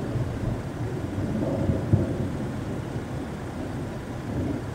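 Thunder from a supercell thunderstorm rumbling low and continuously, with one short, sharper peak about two seconds in.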